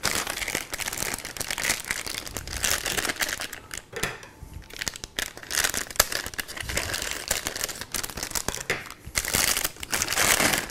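Metallised plastic anti-static bag crinkling and rustling as a hard drive is handled and slid out of it, in crackly bursts with two short lulls.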